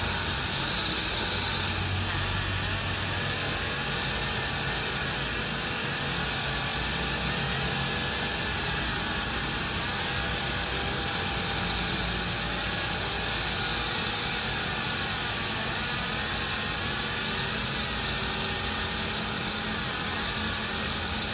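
Distributor testing machine running steadily, spinning a Toyota 3Y distributor with a new ignition coil and firing its spark, a continuous mechanical running noise with hiss.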